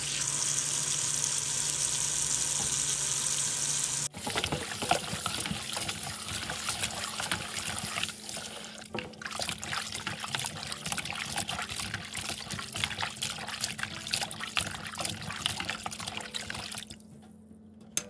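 Tap water running steadily into a basin of raw chicken feet. About four seconds in, after a cut, it gives way to hands sloshing and scrubbing the chicken feet in the water, with irregular splashes that die away about a second before the end.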